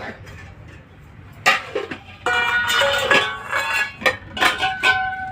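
Metal dishes and utensils clinking and knocking together, starting about a second and a half in. Several strikes, the last near the end, leave a clear metallic ring that fades slowly.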